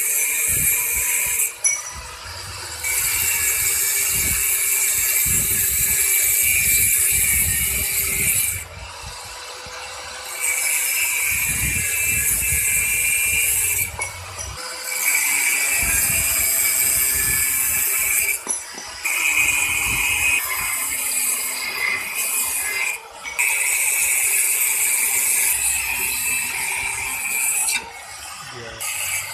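Handheld angle grinder with an abrasive cut-off disc cutting through 304 stainless steel rods: about six loud, hissing cuts of two to six seconds each. Between cuts the motor keeps running more quietly.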